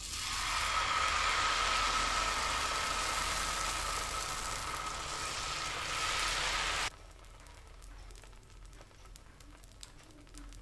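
Vegetable uthappam batter sizzling on a hot, oiled dosa tawa as it is poured and spread with a ladle: a steady hiss that cuts off abruptly about seven seconds in, leaving only faint clicks.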